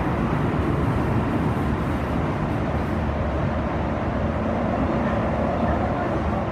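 Toei Shinjuku Line subway train, set 10-470, running through the tunnel as heard from inside the passenger car: a steady, loud rumble of wheels and running gear. A faint rising whine comes in about five seconds in.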